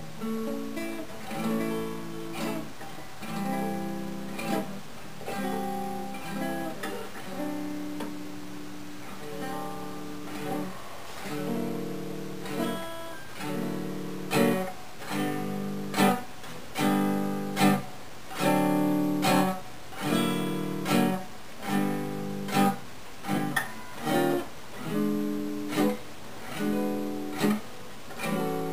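A freshly repaired Gibson L-48 archtop acoustic guitar played: lighter picked notes and chords at first, then strummed chords in a steady rhythm, about one a second, from about halfway through.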